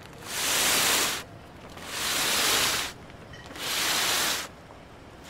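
Repeating whooshes of rushing noise: four even swells, each about a second long, rising and fading about every second and a half to two seconds.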